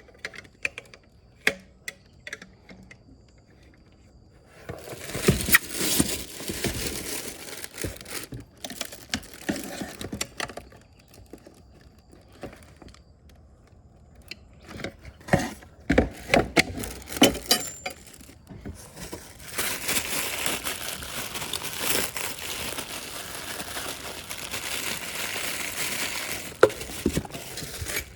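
Packaging crinkling and rustling as it is handled, with scattered sharp clicks and knocks. It comes in spells, with a quieter stretch in the middle, then runs steadily through the last third.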